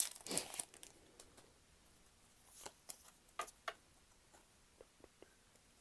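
Foil Pokémon booster pack wrapper crinkling and tearing open in the first second, followed by a few short rustles and light clicks as the cards are handled.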